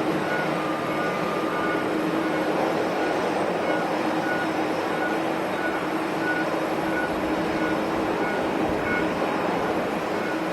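Steady roar of jet aircraft engines at an airport, with a held low hum and a faint short beep repeating a bit faster than once a second.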